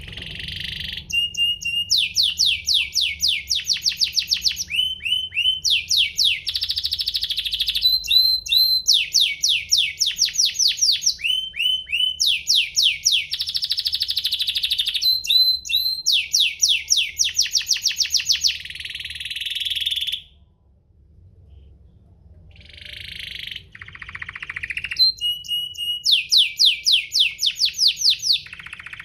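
Domestic canary singing: long rolling song of rapid trills, fast repeated falling notes, strung into phrases, with a break of about two seconds in the middle before the song resumes.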